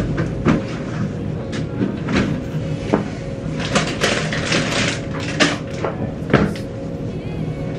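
Toiletries and small containers being picked up and set down on a bathroom counter: a run of irregular clicks, clacks and knocks, busiest about four seconds in, over a steady low hum.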